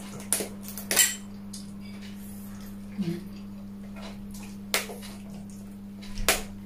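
Crab shell being cracked and pulled apart by hand, with several sharp cracks and clicks, the loudest about a second in, and a clink of dishes. A steady low hum runs underneath.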